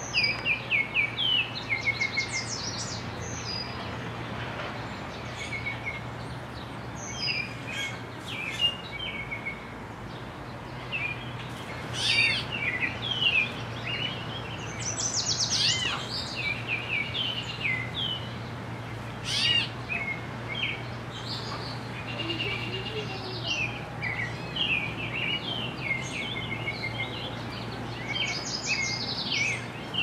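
Several wild songbirds chirping and singing in a mixed chorus: short falling chirps, quick high trills and a few sharp rising-and-falling whistles, scattered throughout. A low steady hum runs underneath.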